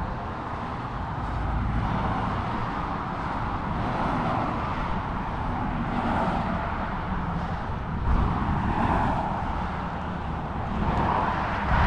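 Road traffic noise, a steady wash that swells and fades as cars pass, over a low, uneven rumble of wind on the microphone.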